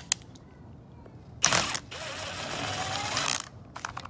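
Hitachi impact driver backing a screw out of an aluminum sliding-door frame: a short burst, then a run of about a second and a half of rapid hammering under a steady high whine. A few light clicks near the end.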